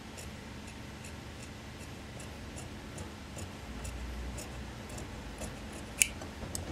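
Large tailor's shears cutting through suit cloth: a steady run of short, crisp snips, about two a second, with one sharper click near the end.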